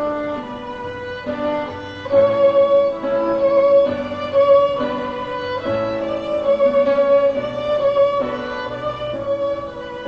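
Background music: a melody of held notes on bowed strings.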